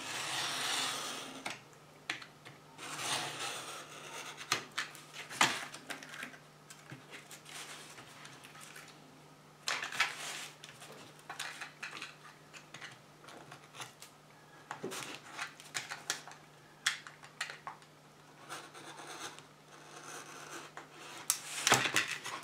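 Craft knife blade cutting and scraping along the edge of a board, in irregular strokes of a second or so with short scratches and a few sharp clicks between them, as the edges are trimmed straight.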